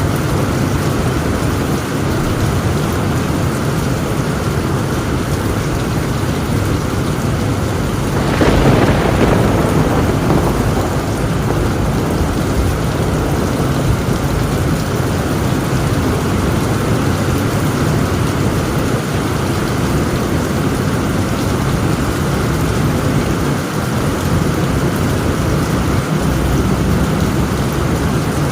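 Heavy rain falling steadily on a tin roof, with a clap of thunder about eight seconds in that fades over a couple of seconds.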